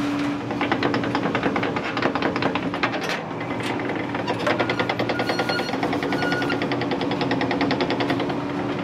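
Rapid, steady knocking, about eight to ten knocks a second, over a low steady hum.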